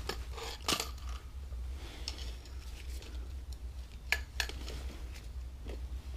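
A few light clicks and clinks from hands working with tools and brake parts, the sharpest about a second in and a pair near four seconds in, over a steady low hum.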